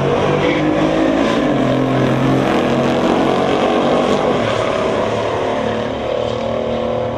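Muscle car engines running loud on the drag strip, several engine pitches shifting up and down.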